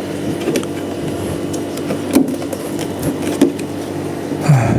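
A few sharp plastic clicks and knocks, about two seconds in and again a second later, as the electric scooter's front plastic body panels around the headlamp are worked loose. A steady low hum runs underneath.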